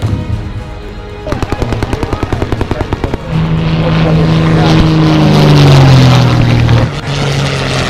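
A machine gun firing a rapid burst for about two seconds, about ten shots a second. Then a low propeller plane passes overhead: its engine drone swells, is loudest a couple of seconds later, and falls in pitch as it goes by. Music plays underneath.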